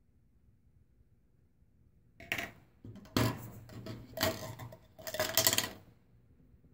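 Carbide bur and its clear plastic storage tube being handled as the bur is taken out: a run of rattling, scraping clatters of metal on hard plastic in about four bursts, starting about two seconds in.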